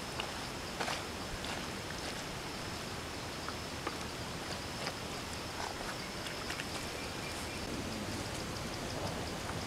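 Steady outdoor background noise with scattered soft clicks, and a thin high steady tone that breaks into rapid pulses near the end.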